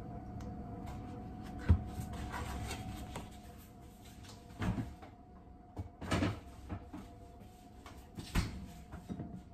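Milk poured from a carton into a ceramic mug, with a sharp knock as something is set down on the counter. Then kitchen cupboard doors and drawers are opened and shut: three thuds and a few small clicks.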